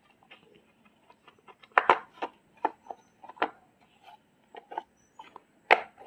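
Irregular clicks and light knocks of a car door lock actuator's plastic housing and parts being handled and pressed together by hand, the loudest about two seconds in and again near the end.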